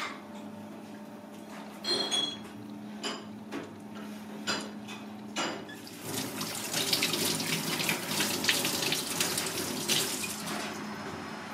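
Tap water running into a stainless steel sink over hands rinsing a maxima clam, starting about six seconds in and stopping shortly before the end. Before it comes a scattering of sharp clicks and knocks as the clam is handled.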